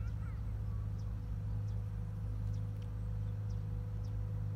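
A steady low mechanical hum, with faint short high chirps about once a second.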